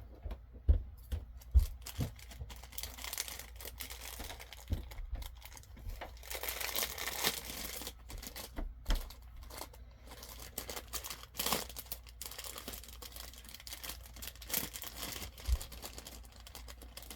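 Packaging crinkling and being torn open by hand, in irregular rustling bursts with small clicks and knocks from handling the pins.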